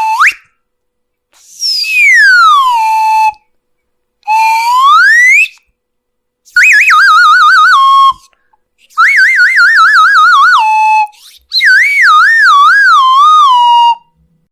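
A string of cartoon slide-whistle sound effects separated by short silences: a quick upward swoop, a long falling glide, a long rising glide, then three warbling whistles that wobble up and down in pitch while stepping downward.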